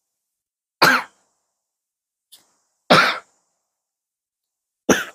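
A young girl coughing three short times, about two seconds apart, into a tissue: a lingering cough from being ill.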